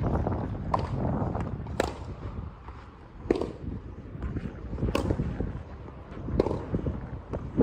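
Tennis balls struck by racquets in a rally on a clay court: about six sharp hits, roughly one every one to one and a half seconds, some loud and close, others fainter from the far end, over a steady low rumble.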